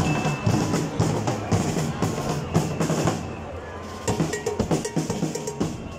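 Marching band playing as it passes, with drum beats and brass and saxophone notes. The music dips briefly about three seconds in, then comes back with short, detached notes over the drums.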